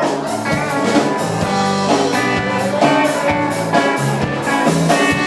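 Live rock band playing an instrumental break: electric guitar and bass over a drum kit keeping a steady beat.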